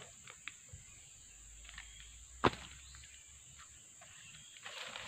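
Steps and rustling in dry leaf litter begin near the end, a few small crackles among them, after a quiet stretch broken by one sharp click about two and a half seconds in. Under it all is a steady high insect drone.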